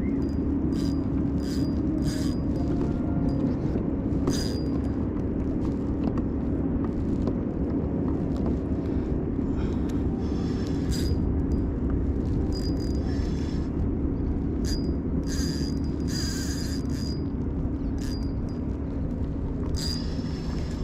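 Spinning reel's drag giving line in short high buzzes at irregular intervals while a striped bass is fought on light tackle, over a steady low rumble.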